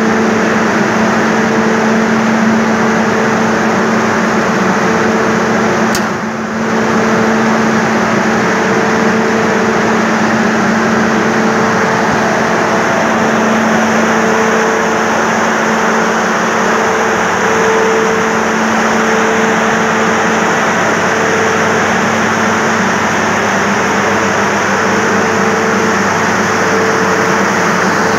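Corn dryer plant machinery running: a steady loud rush of blowing air with a constant low hum and a higher hum above it. The sound dips briefly about six seconds in.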